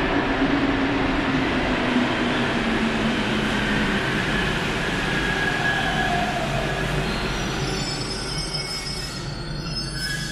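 Paris Métro Line 1 rubber-tyred train running along the platform, its motor whine falling in pitch over the first few seconds as it slows, with brief higher squeals in the middle.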